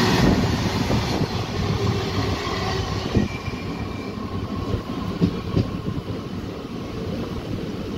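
Passenger train running at speed, heard through an open coach window: a steady rumble of wheels on the rails with frequent knocks. It is loudest in the first second or so, as a goods train's flat wagons go by on the next track.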